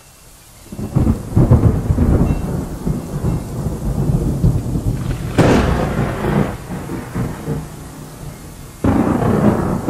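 Thunder rumbling and rolling, with a sharper crack about five and a half seconds in and another sudden clap near the end.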